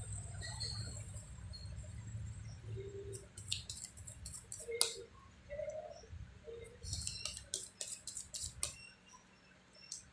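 Tarot cards being shuffled and handled: a run of light snaps and clicks in the middle, and another just past two-thirds of the way, over a low steady hum that stops near the end.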